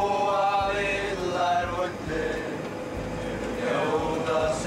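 Voices singing a chant inside a moving coach, with the coach's engine running as a steady low rumble underneath.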